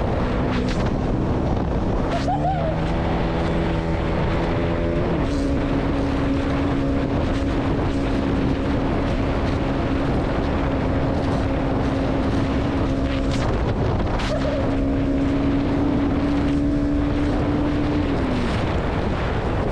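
Single-cylinder 200 cc sport motorcycle engine under way at speed, with heavy wind noise on the microphone. The engine note climbs about two seconds in and holds steady. It dips briefly and climbs back past the middle, then falls away near the end.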